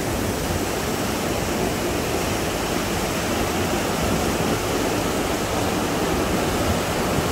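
Muddy floodwater rushing down a street as a fast torrent, a steady, even rushing noise with no let-up.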